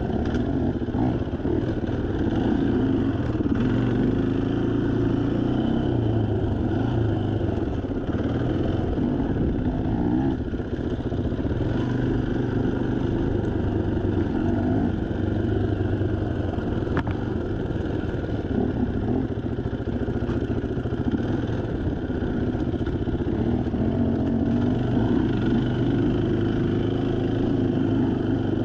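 Off-road dirt bike engine running steadily at low to moderate revs, the throttle easing on and off in small swells as the bike rides a twisty trail. There is a single sharp click around the middle.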